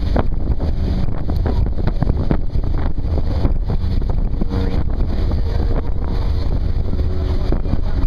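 A ferry's engines running with a steady low rumble under wind buffeting the microphone.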